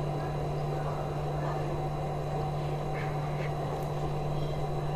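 A steady low electrical hum over a constant bed of background noise, unchanging throughout.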